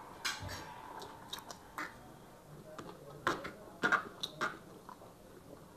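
Eating sounds from a shared meal of noodles: chewing and mouth smacks, with a scatter of short clicks from forks against the serving tray.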